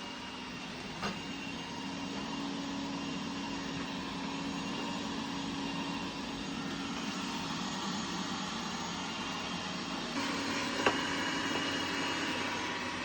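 Robot vacuum cleaner running: a steady motor and brush hum with a low drone, with a short click about a second in and another near the end.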